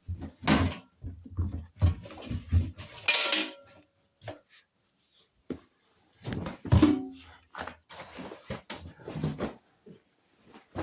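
Irregular knocks, clicks and clattering of things being handled, with loud clusters about half a second in, around three seconds and around seven seconds.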